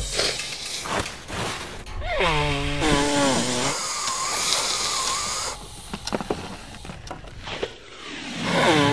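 A cartoon character with a cold blowing his nose hard into a tissue, a long wavering nose-blow, after a falling, whiny vocal groan. A few short sharp sounds follow, and another falling groan comes near the end.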